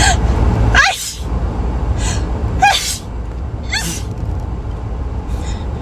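A person sneezing repeatedly, with the two loudest sneezes about one second and about three seconds in, and short gasping breaths between them, over a steady low rumble.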